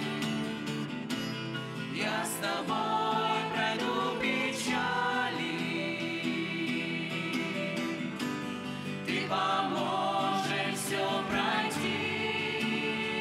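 Music: a gospel-style song with singing over guitar accompaniment.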